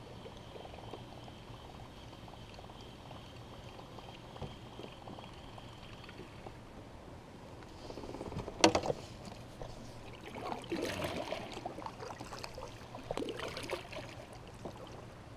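Quiet water trickling and splashing around a fishing kayak, busiest in the last few seconds, with one sharp knock about eight and a half seconds in.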